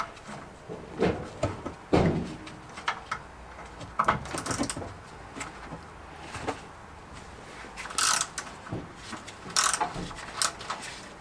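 Hand tools and steel suspension parts being worked on a car's rear axle: irregular metal clanks and knocks, with a few short, sharper rattling bursts near the end.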